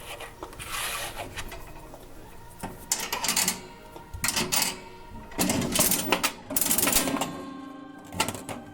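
Toy vending machine mechanism clicking and rattling in irregular bursts as it is worked to dispense a blind bag, over background music.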